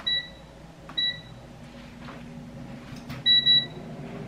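Digital air fryer's touch control panel beeping as its buttons are pressed: a short beep at the start, another about a second later, and a longer double beep about three seconds in.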